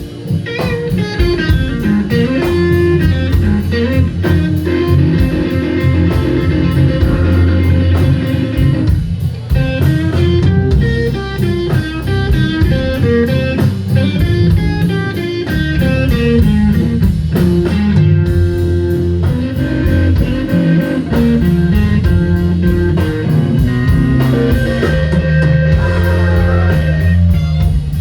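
Live electric blues band playing a slow blues: an electric guitar plays lead lines over bass and drums, sliding down in pitch near the end.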